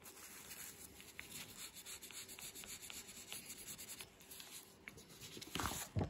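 Faint scratching and rubbing of a wooden barbecue skewer on oil-pastel-coated paper, with small scattered ticks. A louder rustle comes near the end as the paper is slid round on the table.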